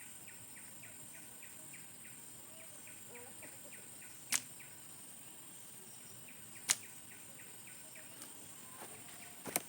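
Quiet outdoor ambience: a steady high insect drone with a rapid, evenly repeated chirp a few times a second. Three sharp clicks or knocks are spread through it, the loudest near the end.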